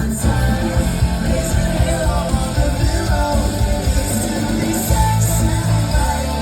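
Music with a singing voice and a steady, pulsing beat.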